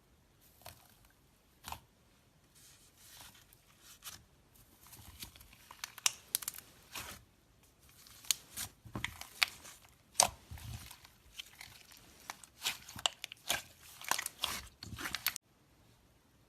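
Slime being squeezed and pressed by hand, making irregular crackling, popping and crunching clicks that grow denser and louder, then stop abruptly near the end.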